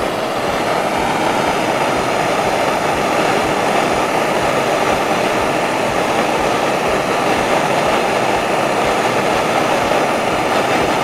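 Blowtorch burning with a steady rushing hiss, its flame reheating a steel rod to anneal it.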